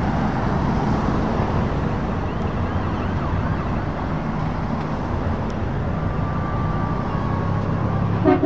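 Scania V8 truck crawling past in slow heavy traffic: a steady low diesel engine rumble over road and traffic noise.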